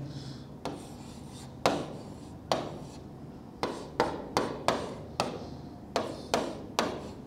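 Pen tip on the glass of an interactive touchscreen board while letters are written: about a dozen sharp taps, each with a short scrape, at an uneven pace and closer together in the second half.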